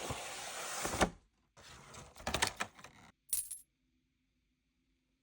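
Pokémon card collection box being unpacked by hand: rustling packaging with clicks and clacks, including a sharp click about a second in. A short clatter comes a little after three seconds in, and then the sound stops.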